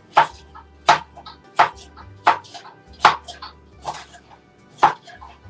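Kitchen knife chopping a red bell pepper on a cutting board: about seven sharp chops, a little under a second apart, with lighter taps between them.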